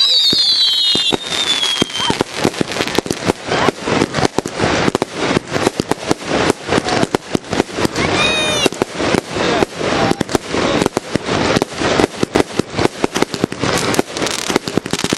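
Firework display: a falling whistle in the first two seconds, then a rapid, continuous crackle of small bangs that runs on. A second short whistle comes about eight seconds in.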